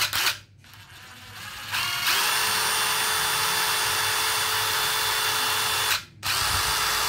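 DeWalt DCF887 brushless impact driver spinning with no load. The motor whine rises as the trigger is squeezed, then runs steadily at speed. It stops briefly near six seconds and starts again.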